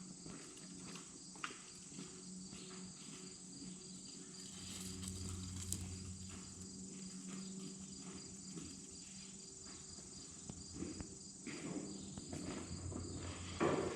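Insects chirping steadily in a high, finely pulsing drone, with a few scattered clicks and knocks and a low hum for several seconds in the middle.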